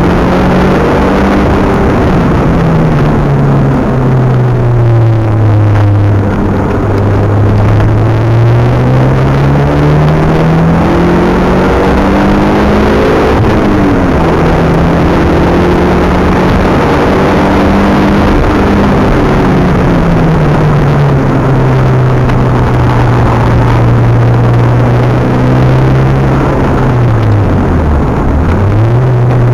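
Mitsubishi Galant VR-4 engine heard from inside the cabin at speed on a race track, with road and wind noise underneath. Its note falls and rises as the car brakes for corners and accelerates out, holds high on the straight, and dips sharply and climbs again near the end.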